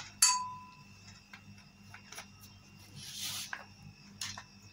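A metal spoon clinks once against a glass bowl, ringing briefly, followed by a few light taps and a short hiss about three seconds in.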